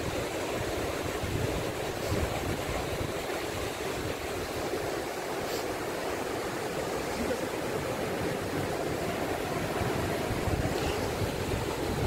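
Fast-flowing mountain river rushing over rocks and small rapids: a steady, even rush of water.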